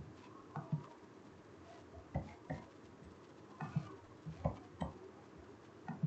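Clicks of a computer mouse and keyboard, about nine short ones, several in quick pairs, over a faint room hiss.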